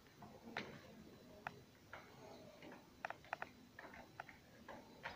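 Faint, irregular small clicks and ticks from handling a door lock's metal hardware, with a quick run of several clicks about three seconds in.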